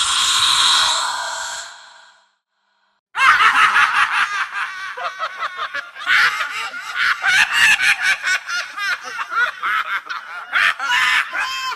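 A witch's cackle: a rapid, high-pitched, repeated laugh that starts about three seconds in after a brief silence. Before it, a hissing rush fades away.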